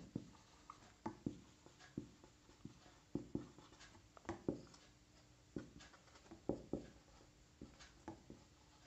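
Marker pen writing on paper: faint, short, irregular strokes as words are written out by hand.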